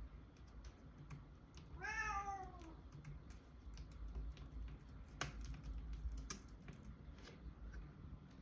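Typing on a Logitech K380 Bluetooth keyboard: light key clicks throughout. A cat meows once, about two seconds in, a single call of about a second that falls slightly in pitch.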